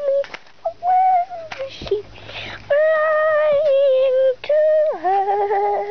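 A girl singing wordlessly in a high voice, holding long, fairly steady notes with short breaks between them.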